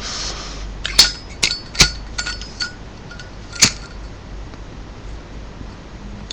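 Zippo lighter's hinged metal lid being clicked open and shut: several sharp metallic clinks with a brief ring, bunched in the first four seconds.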